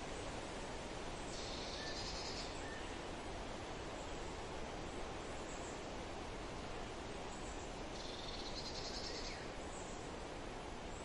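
Steady wind through forest trees, with a bird singing two short high phrases, about a second in and again about eight seconds in, and a few faint chirps between.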